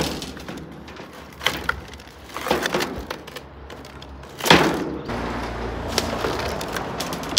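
Rope being hauled in by hand on a metal footbridge, with a few separate knocks and scrapes, the loudest a little past halfway. From about five seconds a truck engine runs steadily with a low rumble.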